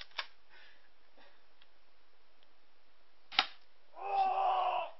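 A single sharp shot from a G21 airsoft pistol, with a faint click just before it, followed about half a second later by a person's drawn-out cry lasting about a second.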